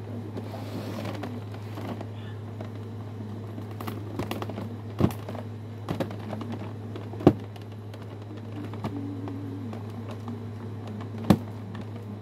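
Hands working a toy robot free of its packaging: rustling and small clicks of plastic and cardboard, with three sharp clicks or knocks about five, seven and eleven seconds in, over a steady low hum.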